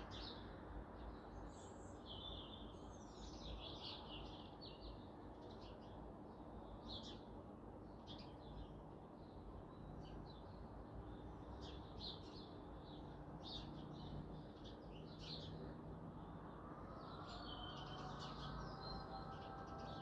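Small birds chirping and twittering over a steady low background noise. From about three-quarters of the way in, a faint steady tone of several pitches starts and holds.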